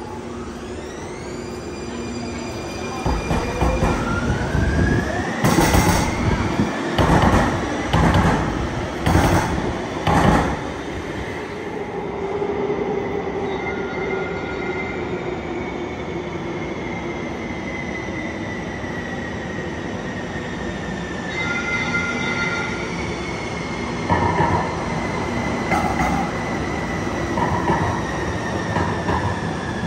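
TriMet MAX light-rail trains in an underground station. One pulls out with a rising motor whine and a run of loud clunks, and its whine then slowly falls away. Near the end another train comes in with a falling whine and a few more clunks.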